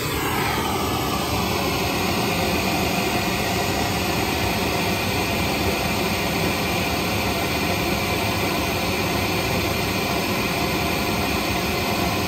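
Pink noise test signal played steadily through a small Sony three-way bookshelf speaker: a constant full-range hiss used to measure the speaker's sound pressure level at a listening seat.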